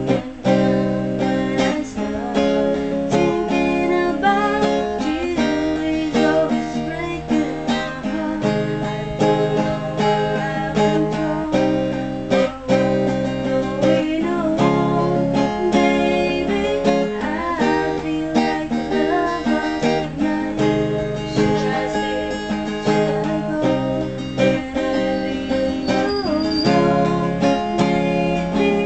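Acoustic guitar being played, chords picked and strummed in a continuous run.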